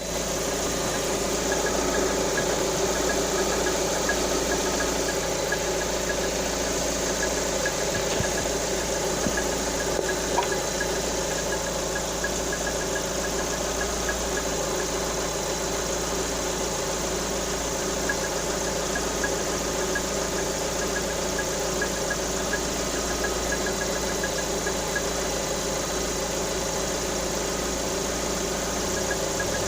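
Lada Vesta engine idling steadily with a regular light ticking knock, which the owner takes for a knocking camshaft.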